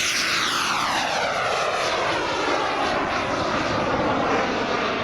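Single B300F model jet turbine of a giant 1/5-scale RC English Electric Lightning, whining loudly in flight. The pitch sweeps down over the first couple of seconds as it flies past, then holds steady.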